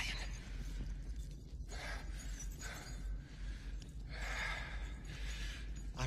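A man's heavy, nervous breaths and gasps, several half-second to one-second breaths a second or two apart, over a steady low hum.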